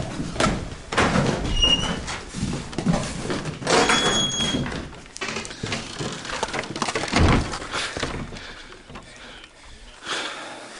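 Hurried footsteps and irregular knocks and thumps on old wooden floorboards, with a couple of brief high squeaks and one heavier thud about seven seconds in, then quieter.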